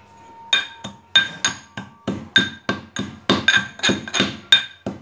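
Metal pestle pounding in a metal mortar, about three strikes a second, each with a short metallic ring. Sugar and a piece of cardamom are being crushed to powder.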